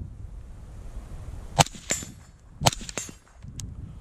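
Two suppressed rifle shots from a Colt 11.5-inch SBR with a SIG titanium suppressor, about a second apart, each followed a moment later by the fainter high ring of a bullet striking a steel plate downrange. A low wind rumble sits underneath.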